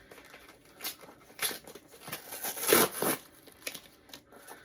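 Cardboard shipping box being torn open by hand: packing tape ripping and cardboard crinkling in several bursts, the loudest about three seconds in.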